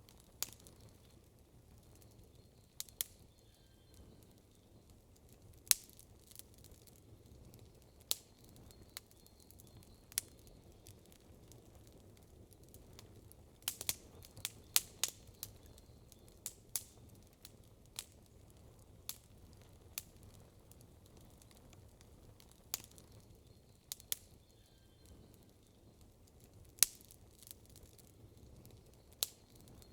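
Wood campfire crackling: sharp, irregular pops, with a quick cluster of them near the middle, over a faint steady low background.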